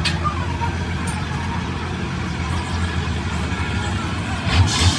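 Diesel truck engine idling with a steady low rumble. Near the end the rumble grows louder and more uneven.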